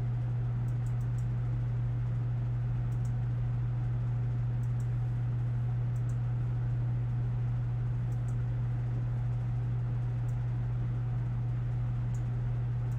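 Steady low hum with a faint hiss, and a handful of faint clicks at scattered moments, the clicks of a computer mouse.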